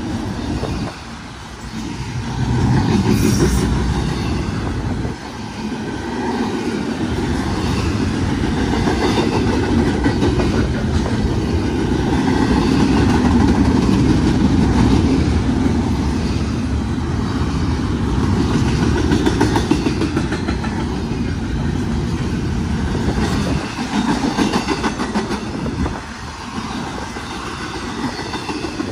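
Double-stack intermodal well cars of a freight train rolling past: a steady rumble of steel wheels on rail with clickety-clack over the rail joints, rising and falling as the cars go by.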